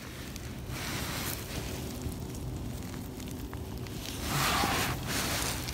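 Steady hiss of rain and wind on the microphone, with a brief louder rustle about four seconds in.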